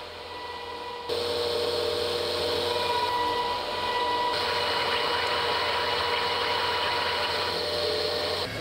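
Beaver Mill 5 vertical milling machine cutting metal: a steady machine whine with the hiss of the cutter in the work, starting up loud about a second in.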